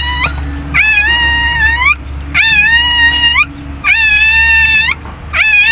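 A dog whining in long, high, repeated cries, about four in a row, each lasting about a second with short pauses between.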